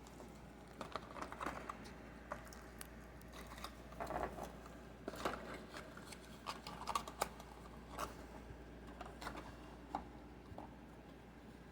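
Scattered light clicks and rustles of plastic packaging and small collectible keychains being handled during an unboxing.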